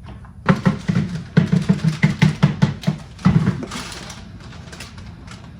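A person's voice in a quick run of short pulses, about four or five a second, starting about half a second in and stopping about three seconds later.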